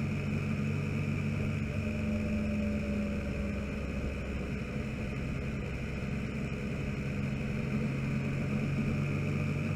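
Motorcycle engine running steadily at low road speed, easing off briefly through a bend and picking up again near the end, over wind and wet-road noise.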